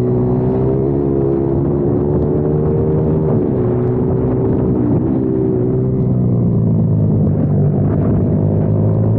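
Kayo TT 140 pit bike's single-cylinder four-stroke engine running hard, picked up by an onboard camera mounted on the bike. The revs fall away for a few seconds in the middle as the bike slows and leans into a bend, then climb again near the end as it accelerates out.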